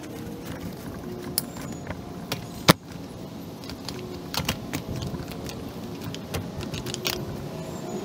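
Nylon gear pouches and their buckles and snaps being handled and fitted onto a tactical vest: scattered clicks, light rattles and rustling, with one sharp, much louder click between two and three seconds in. A steady low hum runs underneath.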